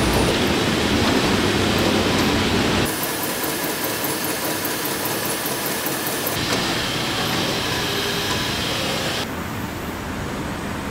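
Steady mechanical noise of a TRUMPF TruPunch 5000 CNC punching machine processing a steel sheet. The sound changes abruptly about three seconds in, again past six seconds, and drops a little near the end. In the middle stretch there is a fast, even ticking of about five a second.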